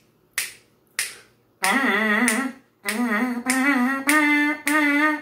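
Two sharp clicks keeping the beat, then a trumpet mouthpiece buzzed on its own: a short phrase of separate, slightly wavering notes that steps upward in pitch, a demonstration of mouthpiece buzzing on a beginner's exercise.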